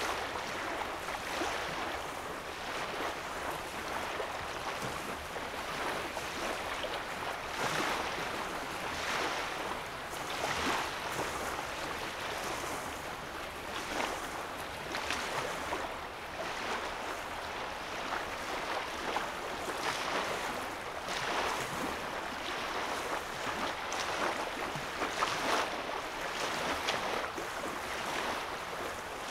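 Small waves lapping on a lake's sandy shoreline, in soft irregular splashes every second or two.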